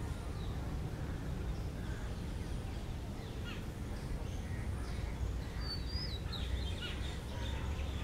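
Oriental magpie robin singing: a run of faint, short whistles and chirps that come thicker in the second half. A steady low background rumble runs underneath.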